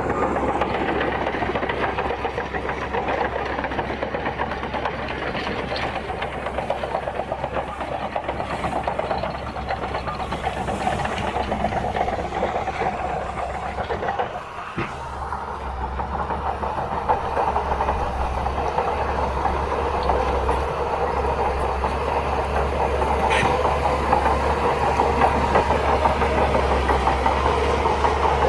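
Crawler bulldozer working: the diesel engine runs steadily under load while the steel tracks clatter rapidly. The sound dips briefly about halfway through, then comes back louder.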